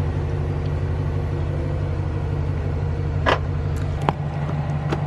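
Chevrolet Tahoe's engine idling with a steady low hum while its power liftgate motors shut, then a sharp click about three seconds in as the liftgate latches. Lighter clicks follow near the end as the driver's door handle is pulled.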